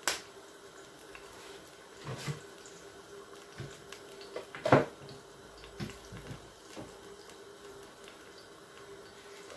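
Thick tomato and pepper stew sauce simmering in a stainless steel pot, bubbles bursting with irregular pops, the loudest a little before halfway. A faint steady hum runs underneath.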